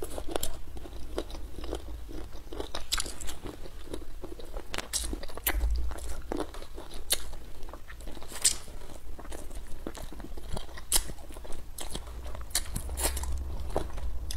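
Close-miked eating of Sichuan-pepper chicken feet: biting and chewing, with many sharp, irregular crunches as she gnaws the feet.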